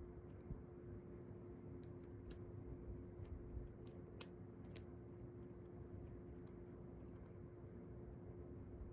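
Faint scattered clicks and taps from handling a new iPhone 12 and its packaging, the sharpest two a little past the middle, over a steady hum.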